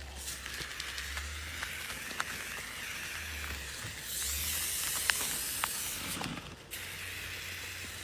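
Stainless steel cleaner being sprayed onto a refrigerator: a steady hiss that grows louder about halfway through and drops away about two-thirds of the way in, with a few small clicks of handling.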